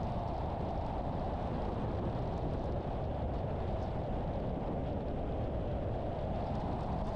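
Steady road and engine noise of a car driving along.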